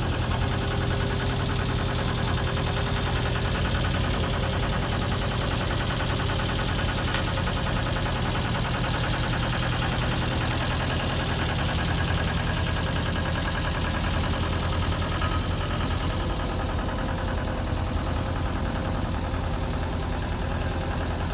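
Diesel engine of a multi-axle modular heavy-haul transporter rig running steadily at low revs, a constant low hum that hardly changes.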